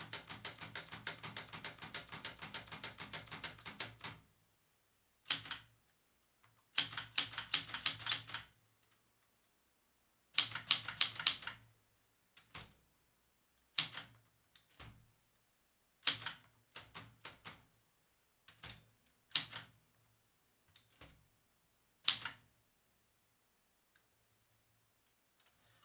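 Typewriter keys striking the page while typing out a drawing: a fast, even run of strokes for the first four seconds, then shorter runs and single keystrokes separated by pauses.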